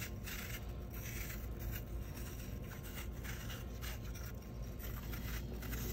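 Paring knife peeling the skin off a Granny Smith apple held in the hand: a series of short, crisp scraping strokes as the blade cuts through the peel.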